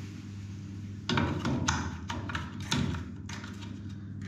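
A cluster of knocks and taps from a small white plastic over-sink water heater being picked up and offered up to its copper feed pipe, between about one and three seconds in. A steady low hum runs underneath.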